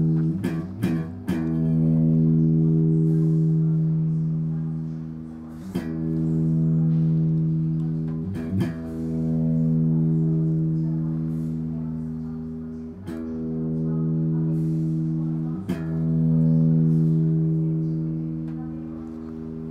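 Electric guitar strummed through a new Marshall Silver Jubilee 4x12 speaker cabinet during its final quality-control test. The strums check that the speakers don't rattle or buzz. A quick flurry of strums comes first, then a chord is struck about every three seconds and left to ring and fade.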